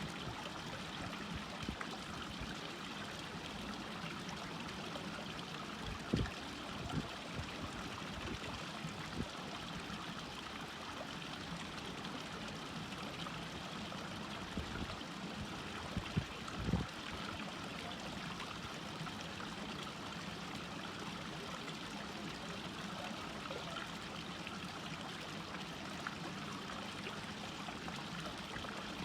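Steady rushing and trickling of a stream. A few short low thumps come through, about six seconds in and again around sixteen seconds.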